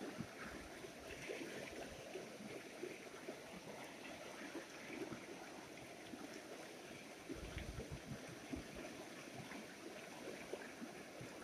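Shallow mountain stream rushing and gurgling over rocks, a steady faint flow of water, with a brief low rumble about seven seconds in.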